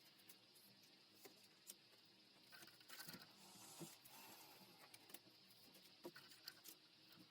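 Faint clicks and light taps of plastic photocard sleeves being handled, with a soft rustle of plastic about three to four and a half seconds in.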